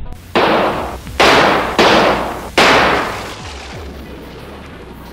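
Four gunshots in uneven succession over a little over two seconds, each a sharp crack trailing off, the last one fading longest.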